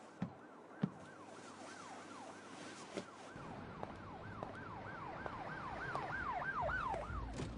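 Siren-like wailing: a falling tone repeated about twice a second, growing louder and quicker. It is part of the dance-music soundtrack, in a quiet break between louder sections.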